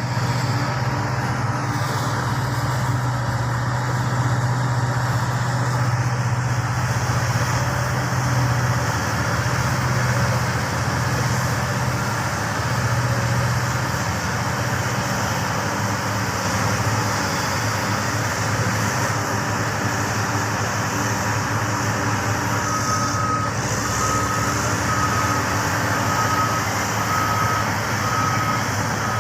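Large mining machinery running steadily, with a heavy low engine hum. A reversing alarm starts beeping about once a second some 23 seconds in.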